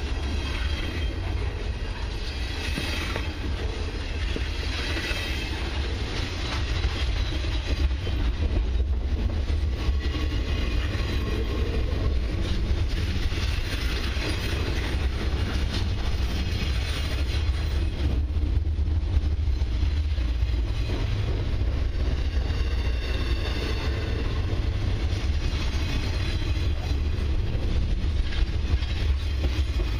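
Intermodal freight train's container well cars rolling past at close range: steel wheels on the rails making a steady rolling noise with a heavy low rumble.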